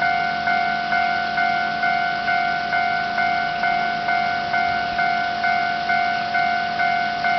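Japanese railway level-crossing warning bell ringing: an even, repeating ding of a little over two strikes a second, each decaying before the next, signalling that a train is approaching and the crossing is closed.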